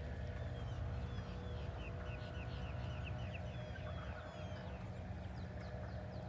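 Birds chirping: a run of short, quick falling notes, several a second, densest in the middle, over a steady low rumble.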